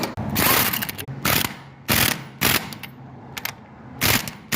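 Ratchet wrench worked in short, irregular strokes, giving about six brief bursts of clicking.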